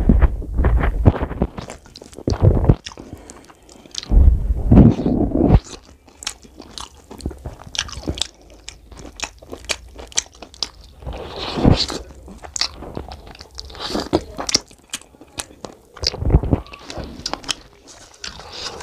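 Close-miked eating of mutton curry and rice by hand: chewing with wet mouth smacks and clicks, heaviest and loudest in the first few seconds, and fingers squelching through rice and gravy.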